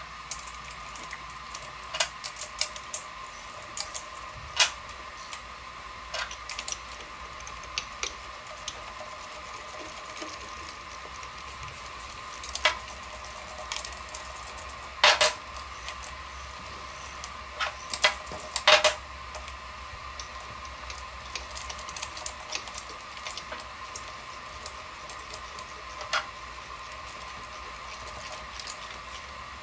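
Scattered metallic clicks and clinks of a wrench working the mold-clamp claw bolts on a desktop injection molding machine, a few sharper knocks about halfway through. Under them runs a steady hum from the powered machine's stepper motors.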